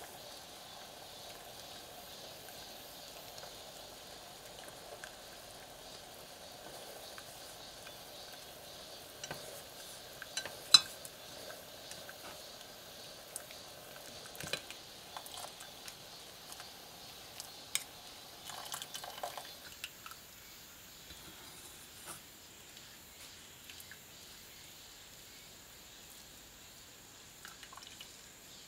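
Faint simmering of a pot of perilla leaf infusion, with scattered clicks and taps of chopsticks and a metal strainer against the stainless steel pot as the leaves are stirred and lifted out; one tap about a third of the way in is much louder than the rest. The bubbling stops about two-thirds of the way in.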